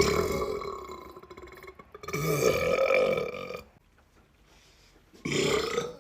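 A man burping: three belches, the first starting suddenly and trailing off over about two seconds, the second held for about a second and a half, and a short third near the end.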